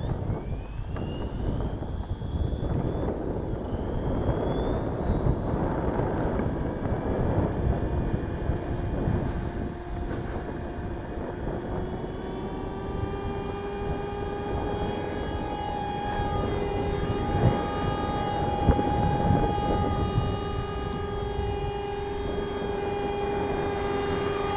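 FORZA450 RC helicopter running, its rotor whirring over a rushing low noise. A whine rises in pitch over the first several seconds, then settles from about halfway into a steady whine of several tones. The sound is smooth, with the rotor-gear noise and speed hunting gone since its main rotor gear was replaced.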